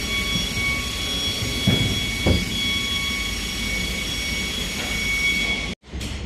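Steady mechanical workshop noise: a rumble with a constant high whine, broken by a couple of sharp metallic knocks about two seconds in, then cut off abruptly near the end.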